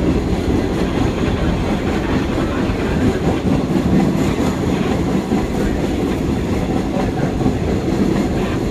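Vintage New York City subway train of R38 and R40 slant cars running along the track, heard from inside the operator's cab: a loud, steady rumble of wheels on the rails.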